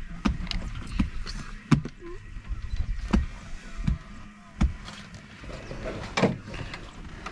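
Irregular knocks and clicks from phones being handled against the window frame of a safari vehicle, over a low rumble.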